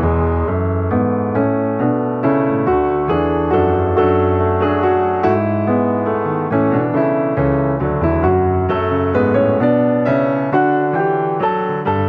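Background piano music: a steady run of struck notes over a held bass line.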